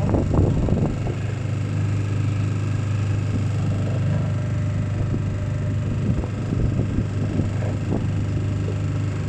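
Small hired motorboat's engine running steadily, a low drone that is strong enough to be felt as vibration through the boat. A few brief crackles in the first second.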